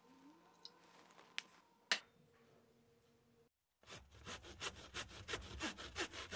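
Faint pouring of liquor into a glass, with two light clinks. Then, after a brief silence, a louder rhythmic sound effect of quick scraping strokes, about four or five a second.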